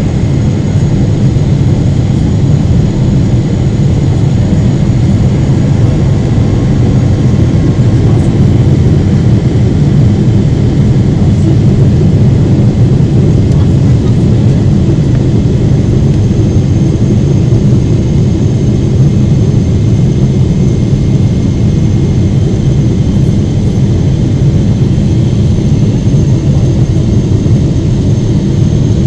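Steady low rumble of a Boeing 777-300's jet engines and rushing air, heard inside the passenger cabin on approach, with a faint high steady whine over it.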